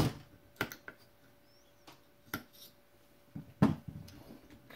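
Sharp metal knocks and clicks from work on an AR-15 lower on a bench block while its trigger hammer is being taken out: about half a dozen separate strikes, the loudest right at the start and a little past three and a half seconds in.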